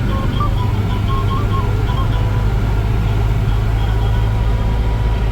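Steady low rumble of a motor vehicle engine running. A short melody of high notes sounds over it for the first two seconds.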